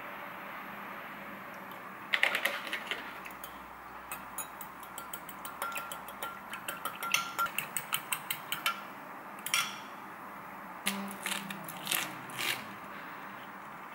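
A metal spoon clinking fast against a glass mug as eggs and milk are beaten, about three or four taps a second, loudest about two seconds in. Near the end come a few softer crisp tearing sounds as iceberg lettuce leaves are pulled apart.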